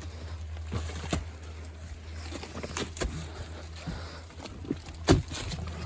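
Footsteps crunching and knocking on the stones of a dry creek bed, irregular, with a louder knock about five seconds in, over a steady low rumble.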